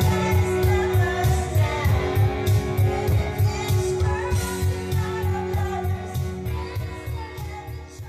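Karaoke: a pop song with a steady beat plays while a group sings along into a microphone. The music fades out near the end.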